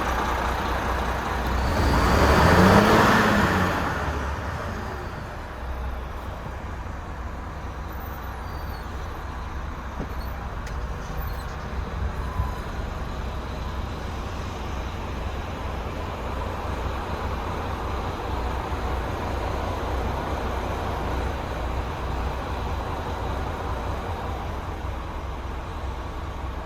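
Diesel truck engine idling steadily with a low rumble; this is the Renault T460's 11-litre turbo Euro 6 engine. About two seconds in there is a louder swell lasting a couple of seconds that rises and falls in pitch.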